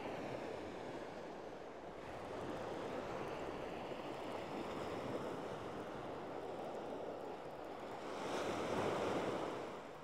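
Small sea waves breaking and washing onto a shingle beach, a steady wash that swells louder near the end and then falls away.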